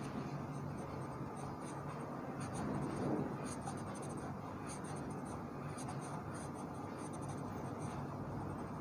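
Charcoal pencil scratching across drawing paper in short, repeated strokes, shading the dark upper part of a drawn eye.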